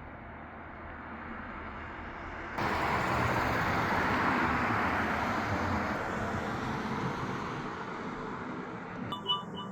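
A road vehicle passing: a steady hiss that swells, jumps louder about two and a half seconds in, then slowly fades away. A few short high pips come near the end.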